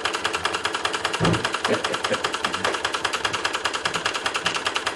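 Large Bing horizontal toy steam engine running fast on live steam: an even, rapid chuff and clatter of exhaust beats, several a second, as it runs well.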